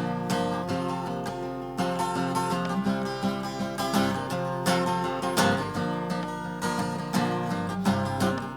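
Acoustic guitar strumming chords in a steady rhythm: the instrumental introduction to a worship song.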